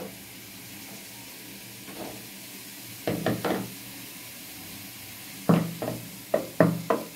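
Knocks and clatter from handling an aluminium cooking pot of mashed potatoes and its wooden spoon as the pot is lifted off a gas stove: a few knocks about three seconds in, then a quicker run of them near the end, over a quiet steady hum.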